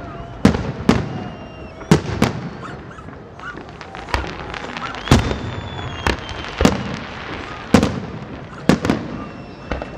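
Aerial fireworks shells bursting overhead, about ten sharp bangs roughly a second apart, with crackling between them.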